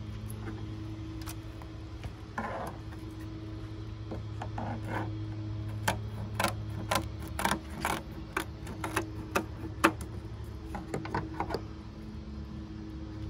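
Knife and fish being handled on a plastic cutting board while a flounder is cleaned: irregular sharp clicks, taps and scrapes, thickest in the middle of the stretch. Under them runs a steady low hum.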